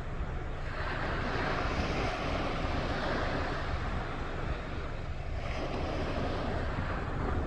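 Sea waves washing onto the shore: two surges of hissing wash, the first building about a second in and the second starting about halfway through, over a steady low rumble of wind on the microphone.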